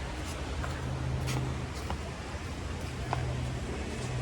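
An engine runs steadily with a low hum that fades for about a second midway and comes back, over a haze of wind and water noise, with a few light clicks.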